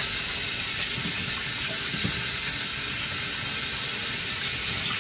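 Kitchen tap running steadily into a stainless steel sink, the stream splashing over blanched pig trotters in a plastic colander as they are rinsed clean.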